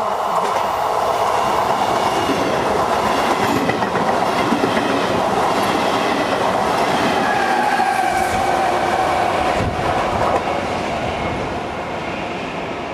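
A regional passenger train of coaches with a locomotive runs close by along the platform, its wheels clattering over the rail joints. A drawn-out squeal comes in around the middle. The noise falls away about ten seconds in as the end of the train passes.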